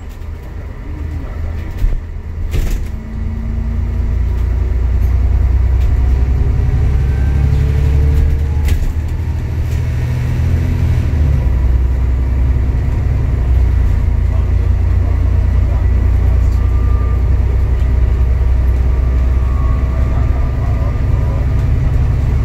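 Cabin noise inside an Alexander Dennis Enviro400 MMC double-decker bus running at motorway speed: a steady low rumble of engine, tyres and road. It grows louder over the first few seconds as the bus picks up speed, and a couple of sharp knocks or rattles come about two to three seconds in.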